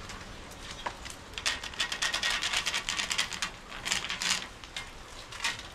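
Food sizzling and crackling on a hot barbecue grill, a dense run of fine crackles that starts about a second in and dies down near the end.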